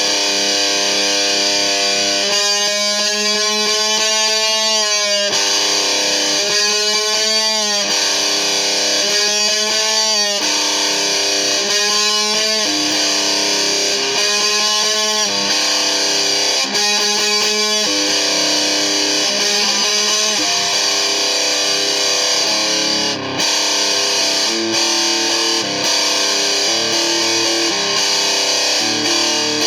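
Distorted electric guitar played through effects. Held notes are bent up and down, repeated several times, then give way to a run of shorter changing notes in the second half.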